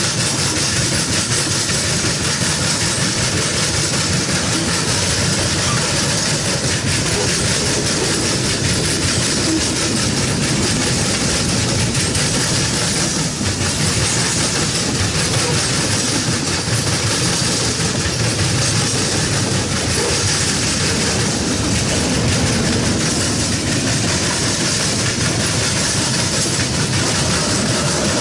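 Freight train tank cars and covered hopper cars rolling past at close range: a steady, loud noise of steel wheels running on the rails.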